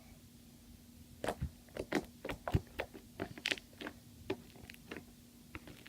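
Fluffy slime made of glue and shaving cream being squished and poked by hand, giving a series of irregular wet clicks and pops starting about a second in.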